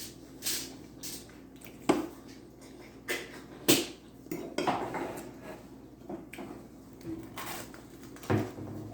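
Eating utensil clinking and scraping against a dish of beefaroni: a handful of sharp clinks, the loudest about two and four seconds in and another near the end.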